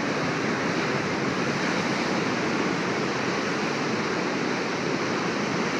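Steady rushing of whitewater below a waterfall, an even noise with no breaks or changes.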